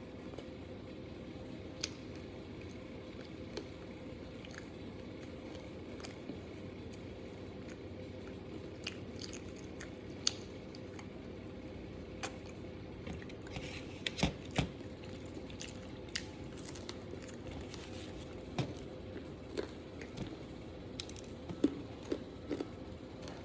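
Someone eating pizza close to the microphone: scattered wet smacks, bites and crunchy chewing clicks, thickest about two thirds of the way through and again near the end, over a steady low hum.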